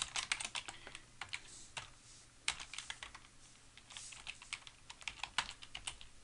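Typing on a computer keyboard: quick, irregular runs of keystrokes with a brief lull in the middle.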